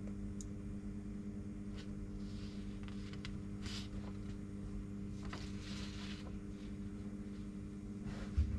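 Sheets of paper rustling in several short swishes as they are handled and shifted, over a steady low electrical hum. A soft low bump near the end.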